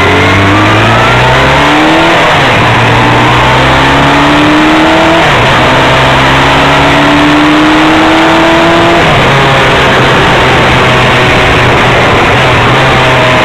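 Motorcycle engine heard from the riding bike, accelerating: its pitch climbs, drops back about two, five and nine seconds in as the gears change, then holds steady near the end. Heavy wind noise runs under it.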